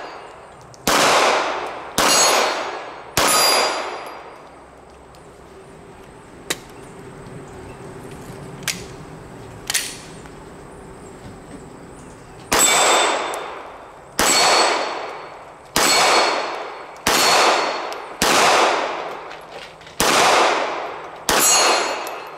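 Gen 5 Glock 19 9mm pistol fired at steel plates in slow aimed shots: three shots about a second apart, a pause of about eight seconds with a few faint clicks, then eight more shots at a steady pace of about one a second. Each shot is followed by the ring of the steel being hit.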